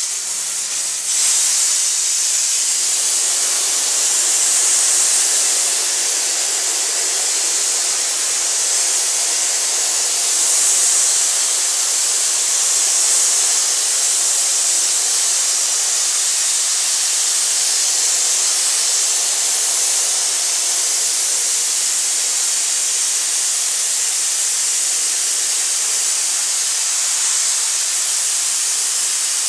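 Aerogommage (low-pressure abrasive blasting) nozzle blowing compressed air and fine abrasive onto a wooden cabinet door, stripping its finish: a steady, high hiss. It steps up about a second in, then holds.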